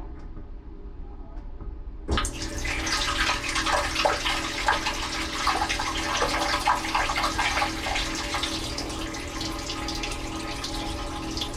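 Dishwasher heard from inside the tub: a low hum, then about two seconds in water suddenly starts spraying and spattering against the walls and racks, continuing as a steady, rapidly fluctuating rush.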